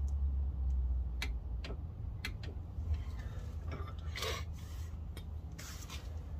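Scattered light metallic clicks and two short rasping rubs about four and five and a half seconds in, as the rear wheel hub of a 2015 Ford Transit 350 is turned by hand and the axle-nut socket is handled at the hub centre, over a low background rumble.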